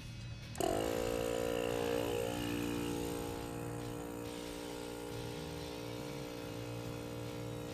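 Portable tire-inflator air compressor switching on about half a second in, its pitch dipping as it starts, then running with a steady, fairly quiet hum as it pumps up a freshly plugged tire from about 10 psi.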